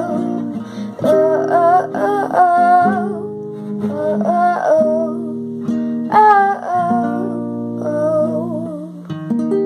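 A young woman singing in phrases over her own strummed acoustic guitar chords, the chords ringing on between phrases.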